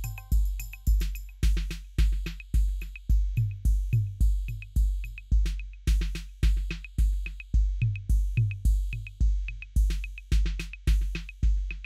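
Background music with a steady, heavy drum beat, about two low beats a second with sharp ticks between them.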